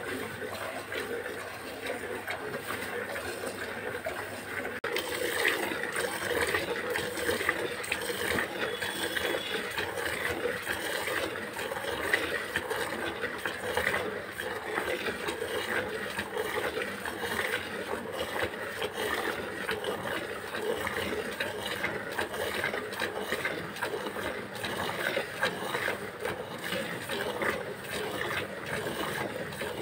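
Milk squirting in rapid, rhythmic spurts from a cow's teats, stripped by hand, into the milk and froth in a plastic bucket. It gets a little louder about five seconds in.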